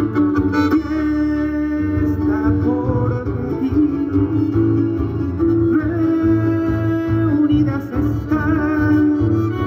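Live chamamé music from a stage band: acoustic guitar playing under long held melody notes.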